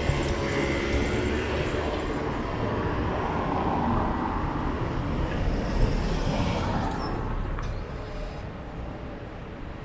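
A train passing close by, a long, loud rumble with a steady hum in it that fades away near the end.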